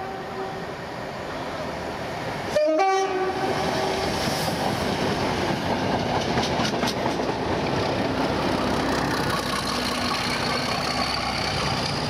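A train sounds its horn twice as it approaches: the end of one blast, then a second, longer blast about two and a half seconds in. It then passes close by at speed with a steady rushing rumble, its wheels clicking over rail joints, and a faint rising whine near the end.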